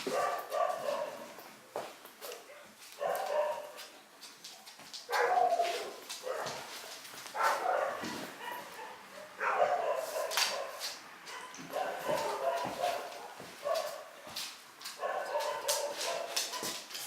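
A dog whining and yipping in short bouts every couple of seconds. The owner wonders whether a nearby cat is making the dog uneasy.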